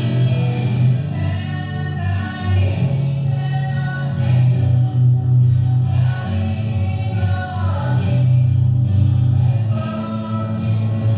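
Live recording of a song: singing over instrumental accompaniment with a sustained low bass line.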